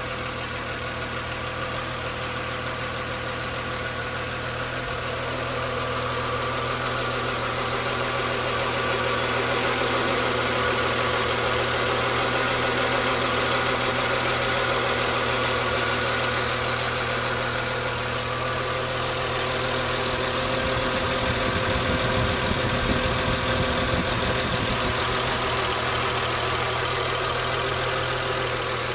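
BMW E36 M3 straight-six engine idling steadily when warm, with a noise the owner is chasing that is still there with the secondary air pump disconnected.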